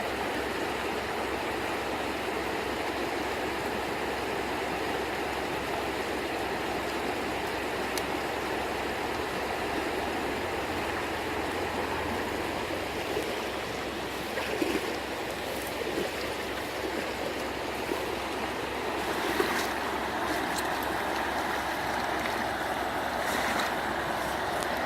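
Steady rush of running water, with a few light splashes or knocks about two-thirds of the way in.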